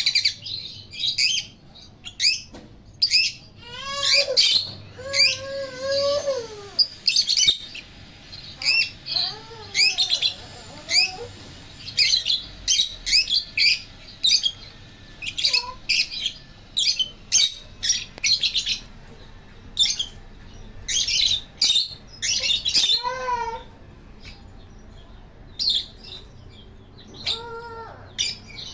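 Pet African lovebirds and a cockatiel chirping: a steady run of short, sharp, high chirps, broken now and then by a few lower, wavering calls.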